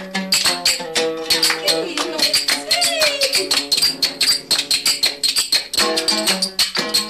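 Moroccan folk music: a plucked oud over fast, dense percussion, with a line sliding up and down in pitch around the middle.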